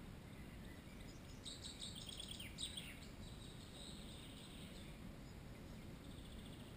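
A small songbird sings once, about a second and a half in: a rapid run of thin, high notes ending in a few falling notes, faint over a low steady background rumble.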